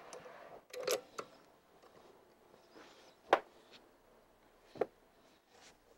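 Hi-Tech modular panel lift being let down and handled: a few separate metal clicks and knocks, the sharpest a little past halfway, with quiet between them.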